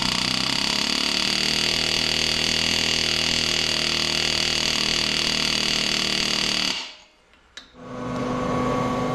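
A handheld air tool runs steadily against the cold-metal stitching of a cast-iron cylinder head, working over a small leak found under pressure test, and cuts off abruptly about seven seconds in. After a brief gap, a different steady running sound starts up.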